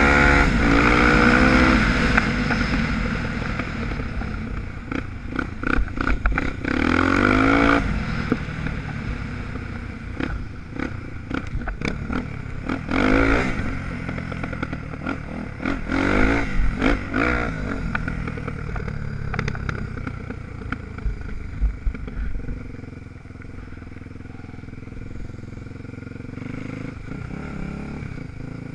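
Dirt bike engine under way, revs rising and dropping several times as the rider accelerates, with knocks and rattles from rough ground. For the last several seconds it runs quieter and steadier.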